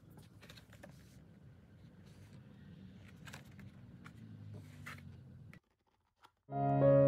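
Faint taps and rustles of a cardboard product box being handled and turned over in the hands. Near the end the sound cuts out briefly, then background music starts abruptly, much louder than the handling.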